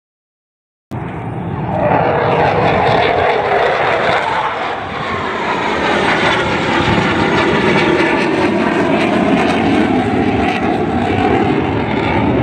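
Military fighter jet's engine roar as the jet passes low overhead, loud and steady, cutting in suddenly about a second in.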